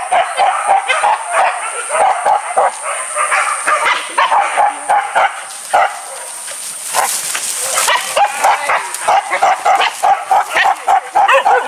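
Several hunting dogs barking and yelping in quick, overlapping yaps, easing off briefly about halfway through, over a steady high-pitched drone.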